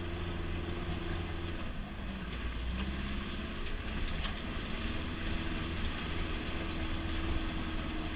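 Truck engine running as the truck drives along a rough track, heard from the open back of the truck: a steady low hum whose note shifts a few times, with faint clicks and rattles.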